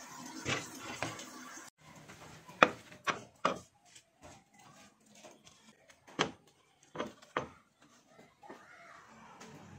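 A knife slicing mango over a stone mortar, then a stone pestle striking and crushing mango slices in a stone mortar (cobek): sharp knocks in quick groups, three together and then three more.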